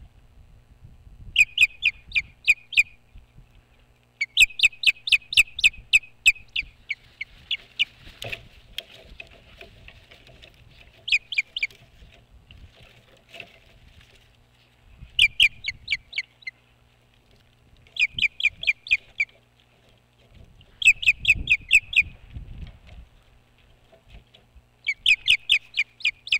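Osprey calling: bouts of rapid, high, piercing chirps, several in quick succession, repeated every few seconds.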